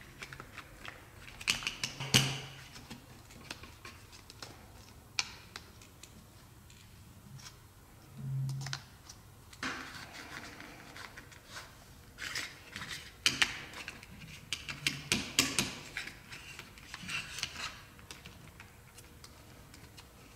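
Plastic fashion dolls being handled on their clear plastic stands: irregular clicks and taps of plastic on plastic, with hair and clothes rustling, in short flurries. A few dull knocks come in between.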